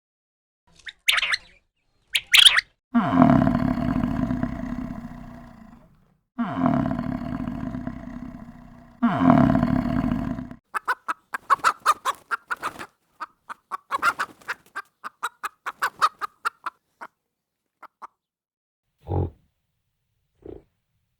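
A run of farm animal calls: three short high chirps, then three long, drawn-out pitched calls, then a quick series of short clucking notes, and a single low thump near the end.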